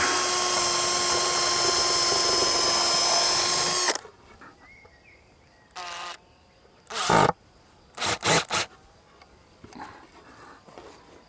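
Power drill running steadily at full speed for about four seconds, drilling a pilot hole into a wooden board, then stopping. A few short bursts of the drill follow.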